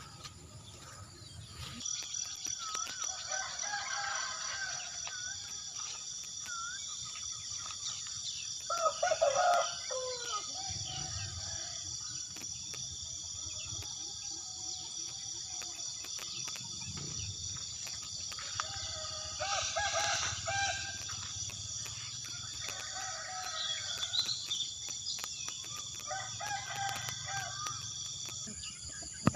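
Roosters crowing, loudest about a third of the way in and again past the middle, with chickens clucking and small birds chirping. A steady high-pitched drone runs underneath.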